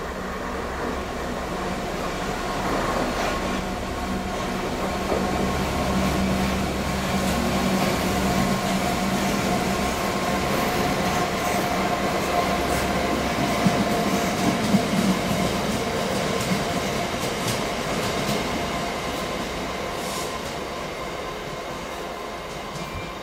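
A Class 66 diesel locomotive's two-stroke V12 engine running steadily as the train approaches and passes at speed. Its wheels give a few sharp clacks over the rail joints about halfway through, and the sound fades as the train goes away.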